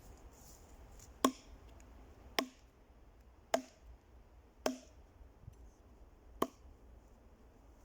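Axe chopping into wood: five sharp strikes about a second apart, the last after a slightly longer pause.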